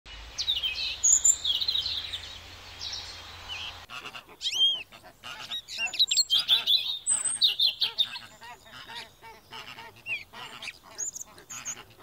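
High-pitched chirping bird calls over a steady hiss, then, about four seconds in, a flock of flamingos honking and calling over each other in a goose-like chatter.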